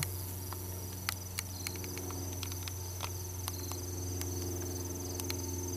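Insects trilling steadily in the grass, a high continuous chirring, over a low steady hum, with a few faint ticks scattered through.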